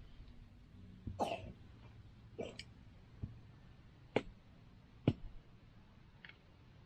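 Quiet hand-handling noises from paracord being worked and tied: a short rustle about a second in, then two sharp clicks about a second apart near the middle.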